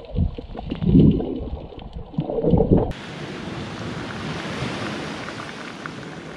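Uneven low rumbling of wind buffeting the microphone. About three seconds in it cuts abruptly to a steady rushing noise of wind and sea surf.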